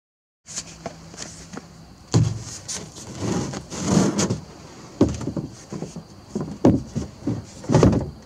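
Go-kart seat being pushed and wedged into the cut-out opening of a blue plastic 55-gallon drum: a series of knocks and scrapes as it rubs and bumps against the plastic, with a longer scraping stretch near the middle.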